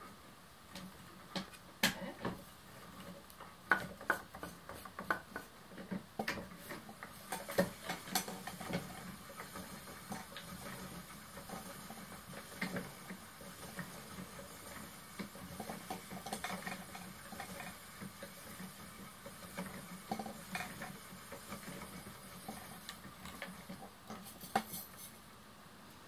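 Wooden spinning wheel at work as yarn is coil-spun over a wire core: a faint steady hum with scattered light clicks and taps, most of them in the first nine seconds.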